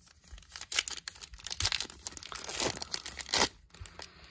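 Foil trading-card pack wrapper crinkling and crackling in the hands in a quick run of sharp crackles with some tearing sounds, loudest about two and a half and three and a half seconds in.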